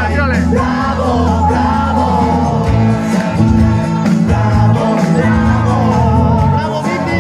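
Live band music with a woman singing lead through a microphone over a steady bass and drum backing.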